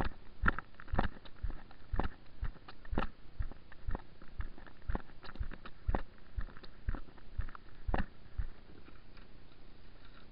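Walking footsteps on a tarmac towpath, about two a second, heard as dull knocks through the camera on the carried kayak; they stop about eight and a half seconds in as the kayak is set down.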